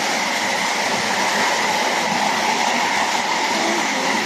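Heavy hail falling, a dense, steady rush of hailstones striking with no let-up.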